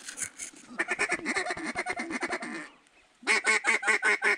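Mallard quacking: a fast chattering run of calls, a short pause, then a loud series of evenly spaced quacks, about five a second, near the end.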